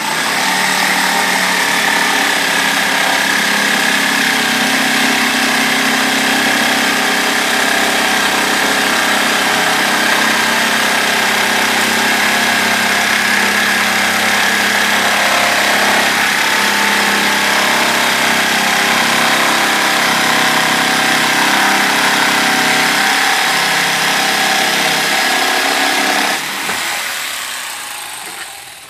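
Electric jigsaw running steadily with a whine as it cuts through plywood. About two and a half seconds before the end it is switched off and its motor winds down.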